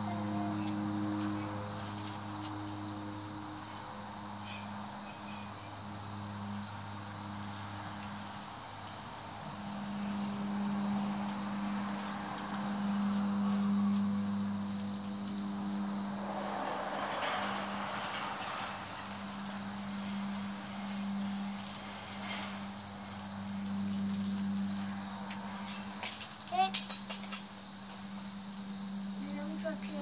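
Insect chirping in high, evenly repeated pulses, over a steady low hum. A brief cluster of sharp clicks comes near the end.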